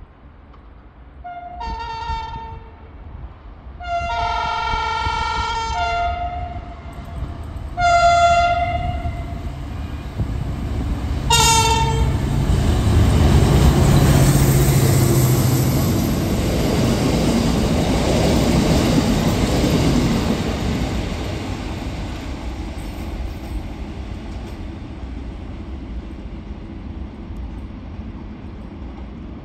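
Locomotive horn sounding several blasts of a multi-tone chord, the longest about two seconds, ending with a short toot. The train then passes close by with a loud rumble that fades away slowly as it goes.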